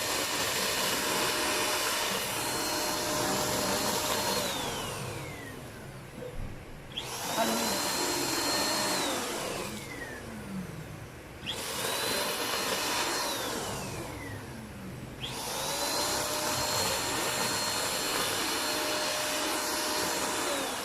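Queenmade 3-in-1 stick vacuum cleaner's motor running with a high whine, switched off and back on several times: at each stop the pitch slides down as the motor winds down, and at each restart it climbs quickly back to full speed.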